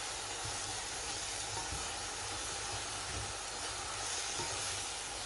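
Chopped mushrooms, onion and garlic sizzling steadily in butter and oil in a pot as they are stirred.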